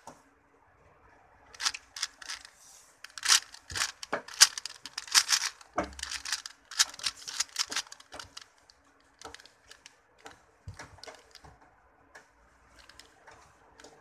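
A 4x4 Rubik's cube being turned by hand: rapid plastic clicking and clacking of its layers, in quick flurries for the first half, then fewer, sparser turns.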